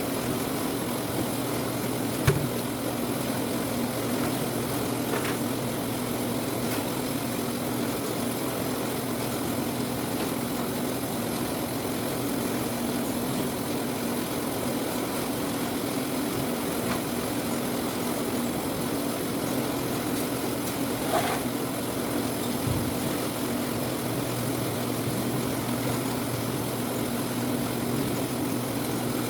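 Orange-sorting machine running with a steady motor hum, with a couple of brief knocks, one about two seconds in and one about twenty seconds in.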